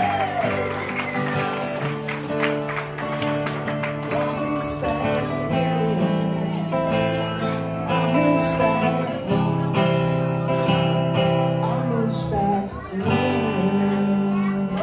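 A song with acoustic guitar strumming chords, and a voice singing in places.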